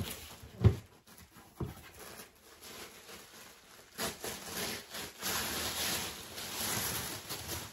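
Cardboard shipping box being opened by hand: a thump and a knock, then a few seconds of steady rasping as cardboard and packing tape are rubbed and torn.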